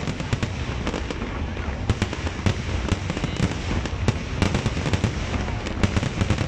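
Aerial fireworks bursting in quick succession: a dense, continuous crackle of many sharp bangs and pops, with no pause between them.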